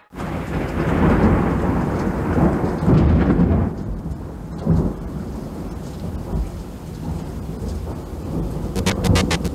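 Thunderstorm sound effect: rumbling thunder over rain, loudest in the first few seconds, then easing to a lower rumble with one more swell about halfway through. Music starts just before the end.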